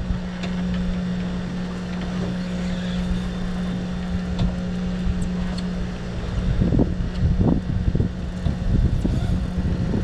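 Boat outboard motor idling with a steady low hum, with uneven low rumbling that gets louder in the second half.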